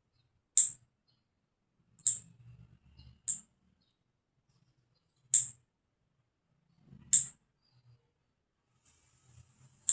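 Nail clippers snipping through long, month-old nails: sharp, separate clicks a second or two apart, six in all, the last one right at the end.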